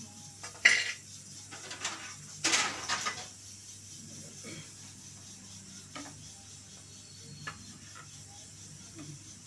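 Crockery clattering on a kitchen counter: a sharp clink just under a second in, a longer rattle around two and a half to three seconds, then a few light clinks as ceramic tea mugs are set on a plate.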